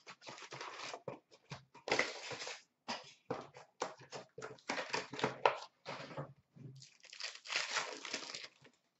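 Trading card box and packs being opened by hand: cardboard and pack wrappers torn and crinkled in a run of irregular rustling, crackling bursts that stop shortly before the end.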